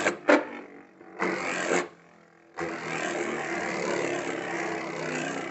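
Divine Belial Beyblade Burst top spinning in a clear plastic stadium: a steady whirring scrape of the top on the plastic. In the first two seconds there are a couple of sharp clicks and a short noisy stretch, then a brief near-quiet gap before the steady spin sound.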